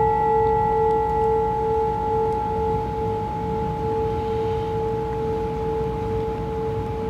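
Small brass singing bowl ringing on after being struck: a steady two-tone hum whose higher overtones die away while it slowly fades.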